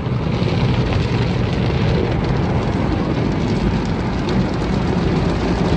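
Automatic car wash working over the car, heard from inside the cabin: a steady rush of spray and machinery with a low hum beneath it.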